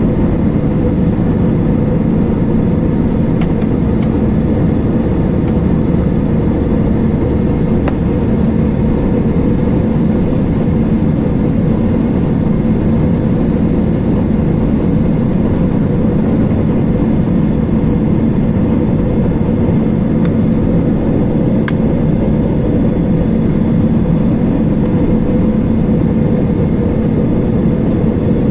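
Airliner cabin noise in flight, heard from a window seat over the wing: the steady drone of the jet engines and rushing air, with a constant low hum.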